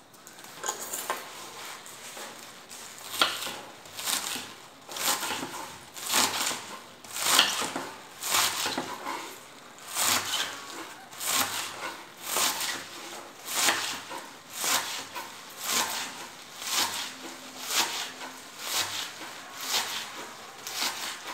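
Kitchen knife chopping through a bunch of green onion stalks onto a wooden cutting board: a crisp crunch and knock with each cut, in a steady rhythm of about one cut a second.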